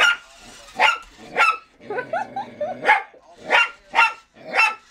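Small dog barking repeatedly, about seven sharp barks, with a brief lower, wavering sound between them about two seconds in.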